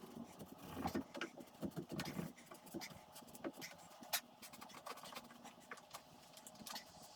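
Faint, irregular knocks, taps and scrapes of wooden railing parts and hand tools being handled, busiest in the first two seconds with a sharper tap about four seconds in.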